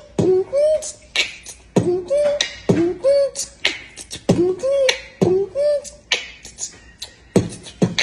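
A man beatboxing a steady beat: sharp percussive mouth sounds about once a second, each followed by short hummed notes that rise and fall.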